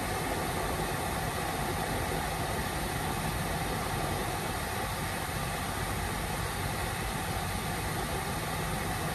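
Steady rush of air from the dashboard vents of a 2008 BMW X5 with the climate-control blower running, over the low hum of its N62 4.8-litre V8 idling.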